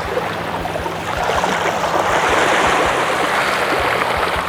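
Rushing, splashing water with a dense crackle, swelling to its loudest midway and easing off towards the end.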